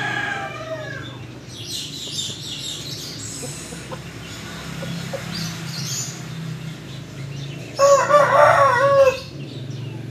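A rooster crows once near the end, a single wavering call lasting over a second. Before it, the tail of a call fades out at the very start, and there are fainter scattered chirps and clucks.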